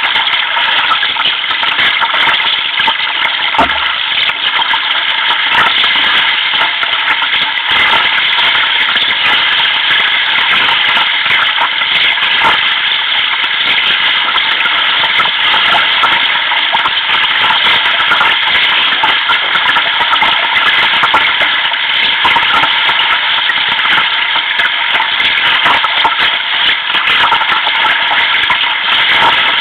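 A steady hissing rush of sea water and wind around a sea kayak moving through a choppy sea, with small splashes and knocks scattered through it.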